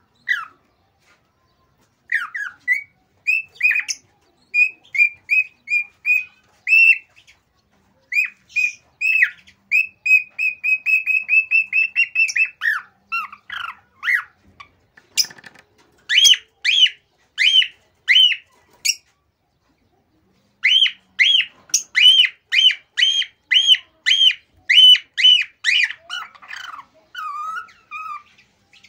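Male cockatiel whistling its excited courtship song: runs of short, clear repeated whistle notes broken by brief pauses, including a fast run of quick notes near the middle. This is the song a male sings to court a mate and get a pair breeding.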